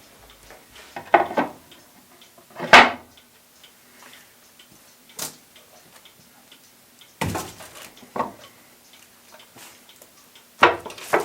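Oak boards of a clock case being handled and set in place on a bench, with a few sharp wooden knocks and clunks, the loudest about three seconds in and a quick cluster near the end.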